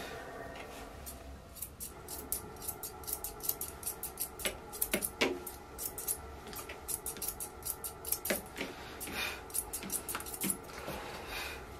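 Grooming shears snipping through a toy poodle's coat in quick, irregular snips. A steady background hum stops about a second in.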